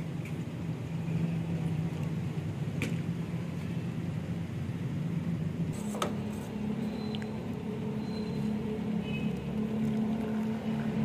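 Steady low hum, its pitch stepping up about six seconds in, with a steel ladle clinking sharply against a steel cooking pan at that moment and a lighter click earlier.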